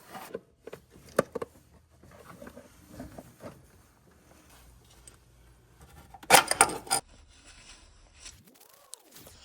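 Metal hand tools and parts clinking and knocking during engine repair work: scattered light clicks, with a louder clatter lasting under a second about six seconds in.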